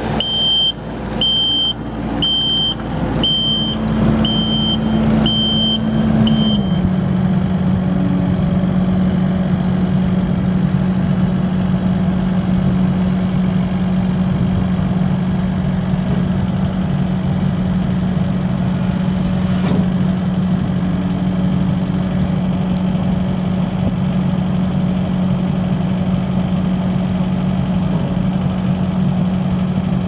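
Kubota SVL75-2 skid steer's four-cylinder turbo diesel running with its backup alarm beeping about once a second. The beeping stops about six seconds in, and the engine settles to a slightly lower, steady idle.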